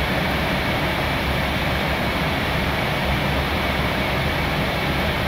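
Steady flight-deck noise of an Airbus A321 in flight: air rushing past the airframe and ventilation, with a low hum and a faint steady high tone underneath.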